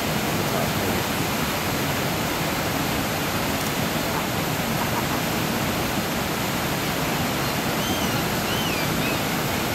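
Steady rush of a low river waterfall and rapids. A faint high wavering call sounds near the end.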